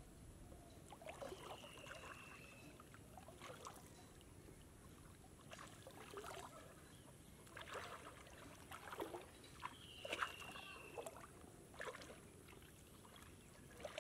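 Faint, irregular splashing and sloshing of shallow water as a fishing net is hauled in by hand through a flooded field. A thin high whistle sounds twice, slightly falling, about a second in and again about ten seconds in.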